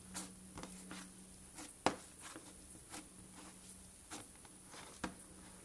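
Hand pressing and squishing cloud slime, giving irregular soft crackles and sticky pops, the sharpest one just under two seconds in.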